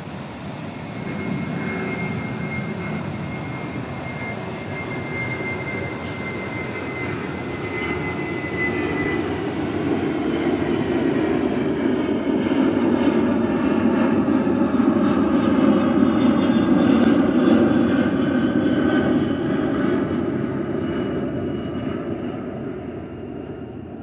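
A jet airliner passing low overhead: its engine noise swells for about fifteen seconds, then fades. A thin, slowly falling whine is heard over the first several seconds. The rush of the waterfall lies underneath during the first half.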